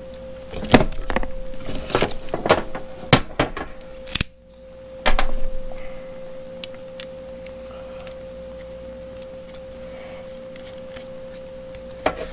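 Clicks and knocks of Husky ratchet strap hardware being handled, its small bolts going back on, for about five seconds, over a steady high-pitched hum that continues alone after that.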